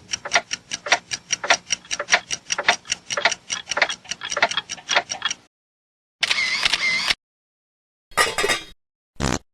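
Rapid, even ticking sound effect, about six ticks a second, which stops about five seconds in. It is followed by three short, separate sound effects with silence between them.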